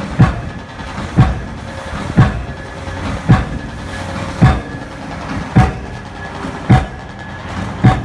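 Pile-driving hammer striking a concrete test piling, eight blows about a second apart, each a sharp bang over a steady drone of machinery.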